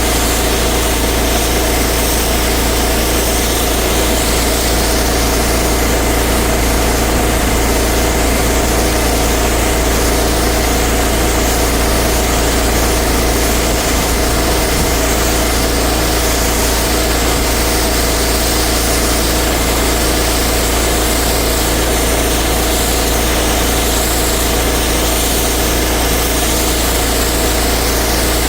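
A pressure washer's engine runs steadily under an even hiss of spray, with no change in pitch or level.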